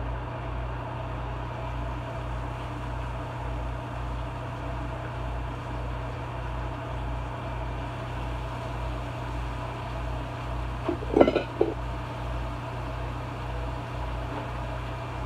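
Steady low mechanical hum of a kitchen appliance motor, with a short clatter of a few quick knocks about eleven seconds in.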